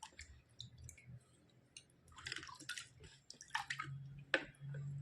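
White slate pencils being scraped: a string of short, dry scrapes and crackly clicks in small bunches, with one sharp click about four and a half seconds in.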